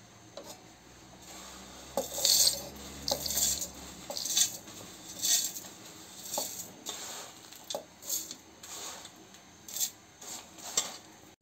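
Handfuls of roasted dals, coriander seeds and whole spices scooped from a steel plate and dropped into a steel mixer-grinder jar, rattling against the metal in about ten short, irregular bursts.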